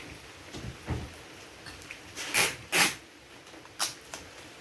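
Knocks and clacks of firework mortar tubes and racks being handled and set down: a dull thump about a second in, then two sharp, loud clacks about half a second apart a little past two seconds, and a lighter knock near four seconds.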